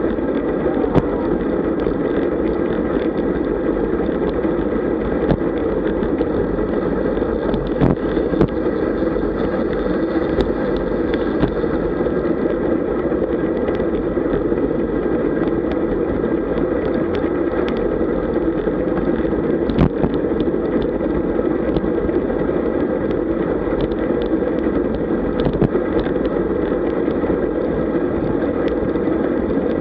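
Steady wind rush and road noise on the microphone of a camera riding along with a fast group of road bikes at about 35–40 km/h. Scattered short clicks and knocks come through the rush.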